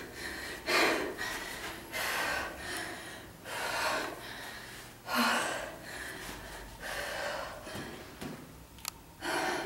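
A woman breathing hard and out of breath after a strenuous interval workout. She takes heavy gasping breaths through the mouth, one about every second or so.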